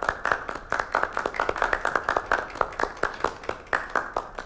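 A small group of people applauding, with distinct overlapping hand claps several times a second.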